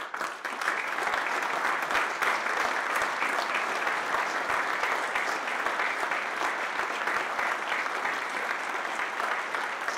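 An audience applauding: a few scattered claps quickly build into steady, even applause from a roomful of people.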